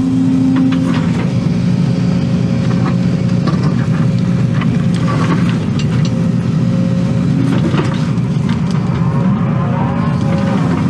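Excavator's diesel engine running steadily under working load, heard from inside the cab, with a steady whine over it. Scattered clunks come as the bucket digs and carries dirt.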